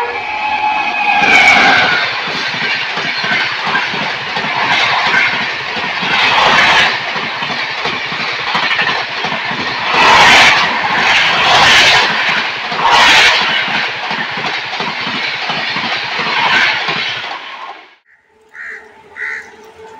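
An Indian Railways electric locomotive's horn tails off with a drop in pitch as the engine passes. Then comes a loud, continuous rush and clatter of express coaches going by at speed, wheels pounding over rail joints, with several louder swells. The sound cuts off abruptly near the end, leaving a faint steady tone.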